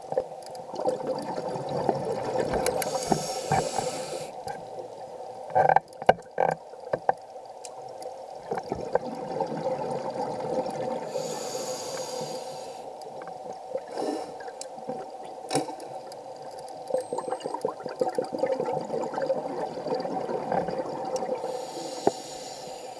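A scuba diver breathing underwater through a regulator: a hiss on each inhale, three times, with bubbly exhaust rumbling between breaths over a steady hum. A few sharp knocks come about six seconds in.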